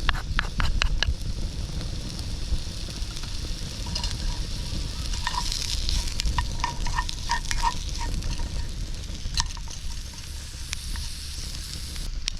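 Food sizzling in a pan over a campfire, with scattered sharp clicks and, in the middle, a run of light metallic clinks as it is stirred.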